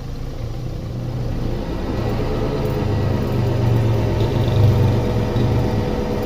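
Volkswagen Saveiro G6's worn wheel bearings droning as the car pulls away and gathers speed: a low hum with a cluster of tones that slowly rise in pitch and grow louder with road speed.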